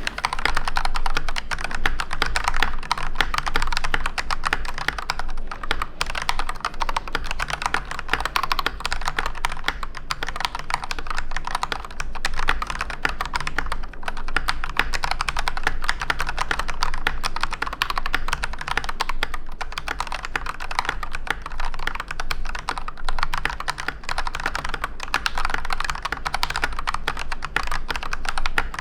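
Continuous fast typing on an AKKO 3098S mechanical keyboard with Akko CS Starfish switches and PBT keycaps: a dense, even run of key clacks with a few brief pauses.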